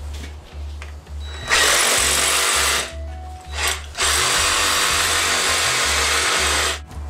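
Reciprocating saw cutting through a sheep carcass in three runs: about a second and a half, a brief blip, then nearly three seconds.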